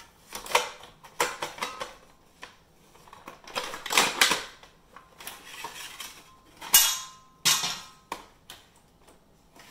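The metal back cover of a SodaStream being slid off its plastic body: irregular scraping and clattering of thin metal against plastic, with several sharp knocks and a brief metallic ring about seven seconds in.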